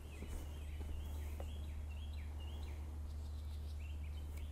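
A songbird singing a run of short repeated notes, about three a second, then a few more near the end, over a steady low background rumble.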